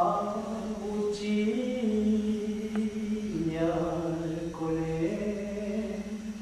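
A single voice singing a slow, chant-like melody of long held notes, the pitch shifting every second or two. A sharp click sounds a little under three seconds in.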